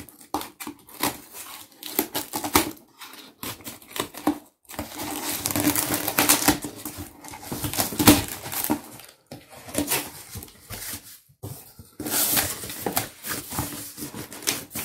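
Scissors snipping packing tape and the flaps of a cardboard box being opened: a run of sharp clicks and snips at first. After that come longer stretches of rustling and crackling as the shredded cardboard packing filler inside is handled.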